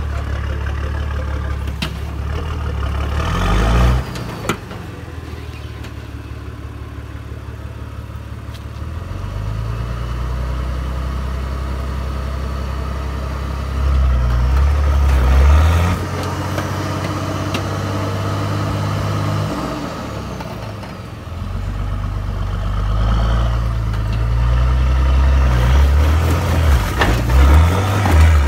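Nissan Patrol's 4.2-litre turbo diesel engine labouring at low revs while rock crawling, rising in several surges of throttle as the tyres scrabble and throw dirt. One sharp knock about four and a half seconds in.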